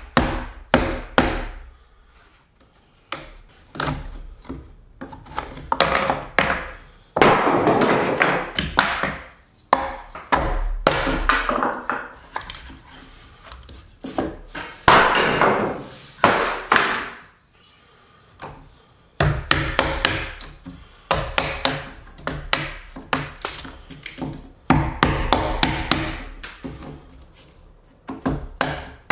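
Hand tools notching a round log: many sharp taps and chops of steel biting into the wood, broken by a few longer scraping stretches as the chips are pared out.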